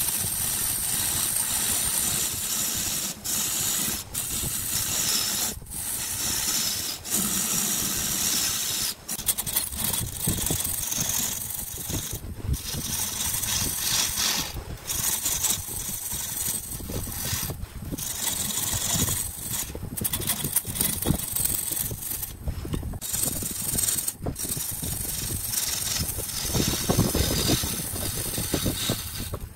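Hand-held turning gouge cutting a spinning wooden vase blank on a benchtop wood lathe: a steady hissing shear of wood with the lathe running underneath, broken by several brief pauses where the cut drops out.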